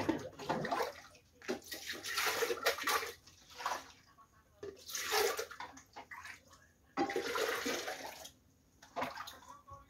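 Water pouring and splashing in a sink in spells of about a second, as dishes are washed by hand, with a few knocks and clatters of dishes and containers between the spells.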